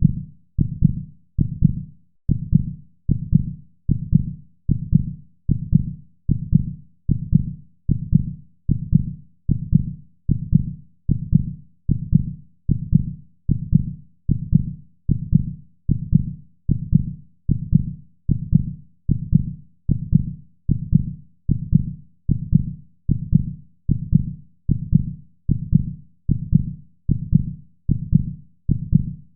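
Rhythmic heartbeat sound: low, muffled thuds repeating evenly at a little over one beat a second.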